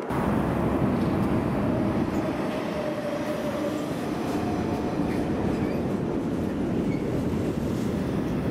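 DB electric locomotive hauling an intermodal freight train past at speed. A steady rumble of wheels on rail starts suddenly, with a faint whine and a few light clicks.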